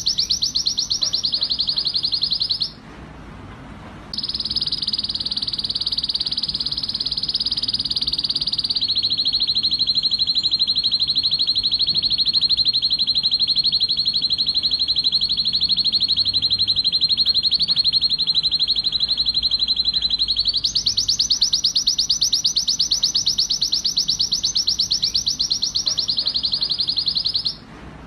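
Male red-factor canary singing in excited breeding song: long rolls of very rapid, high repeated notes, each held for several seconds before switching to a new trill. The song breaks off briefly about three seconds in and again near the end.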